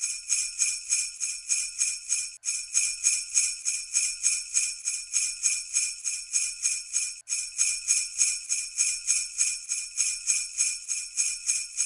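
Sleigh bells shaken in a steady rhythm, about three to four jingles a second, with a brief break about two seconds in and again about seven seconds in.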